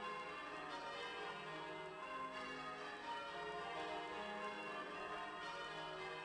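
Church bells ringing changes: a steady run of bell strikes in quick succession, their tones overlapping and ringing on.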